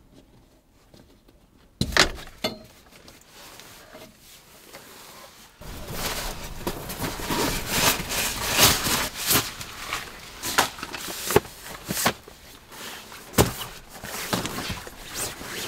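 Handling noises: a sharp knock about two seconds in, then from about halfway a busy rustle of bedding being unrolled and spread over the floor, with scattered clicks and light knocks.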